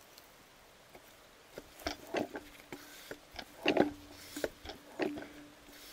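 Diesel injector from a Sofim 8140 engine being pop-tested on a hand-lever injector tester: after about two seconds of quiet, a handful of sharp clacks with short spray hisses as the lever is pumped and the injector fires. The injector sprays without chattering.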